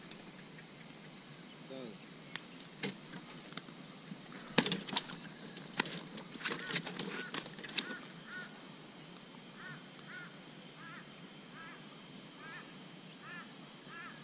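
Sharp clicks and rattles of pliers and lure hooks as a bass is unhooked in a landing net, busiest between about four and eight seconds in. After that a bird calls over and over in short, arched notes.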